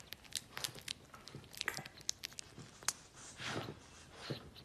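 A newborn puppy smacking its lips and tongue: faint, quick wet clicks, followed by two soft breaths near the end.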